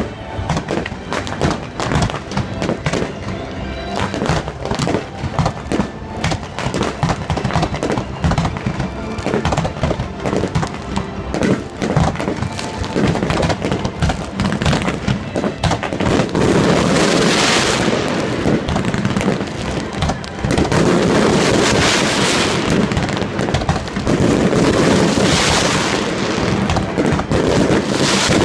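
Fireworks going off in quick succession, many sharp pops and crackles, with music playing alongside. From a little over halfway, three long crackling swells of a few seconds each are the loudest part.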